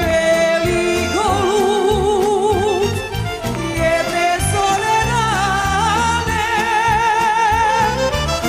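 A woman singing live with a band, holding long notes with a wide vibrato over a steady bass-and-drum beat.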